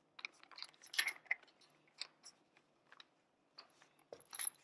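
Faint scattered clicks and taps of a bit being fitted into the chuck of a Ryobi cordless drill and the drill being handled, the sharpest about a second in and a short cluster near the end; the drill motor is not running.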